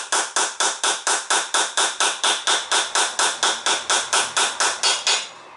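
A nylon soft-faced hammer taps a greased brake caliper piston into its bore on a Toyota Corolla AE86 front caliper, seating it past the new seal. The strikes are quick and evenly spaced, about four to five a second, and stop near the end.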